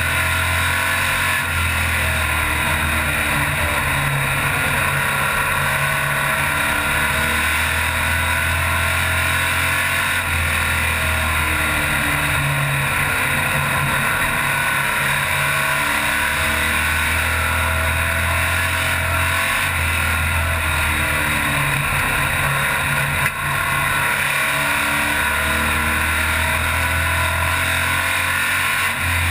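Stock race car engine heard from inside the cockpit at racing speed, its note rising and falling in a repeating cycle every several seconds as the driver accelerates and lifts around the short oval.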